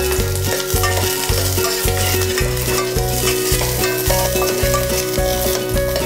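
Cubed onion, carrot and ginger sizzling in hot oil in a saucepan while a spoon stirs them, with a steady frying hiss. Instrumental background music with a regular bass line plays underneath.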